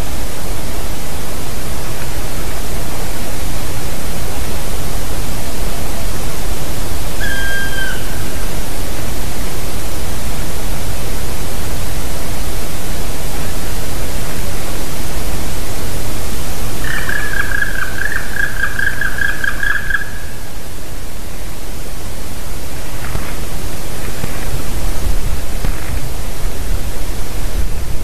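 A loud, steady rushing hiss runs throughout. Through it a black woodpecker calls: one short, slightly falling note about seven seconds in, then a fast run of repeated notes lasting about three seconds, starting about seventeen seconds in.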